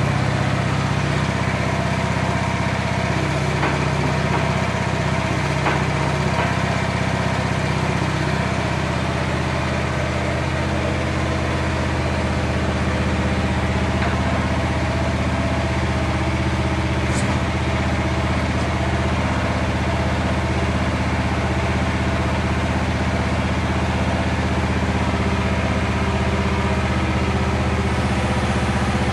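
Engine of a Jansen MB 500 motorised barrow running steadily at idle, its pitch and level unchanged. A brief click sounds once, over halfway through.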